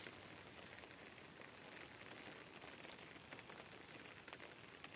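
Near silence: faint outdoor hiss with a few soft ticks.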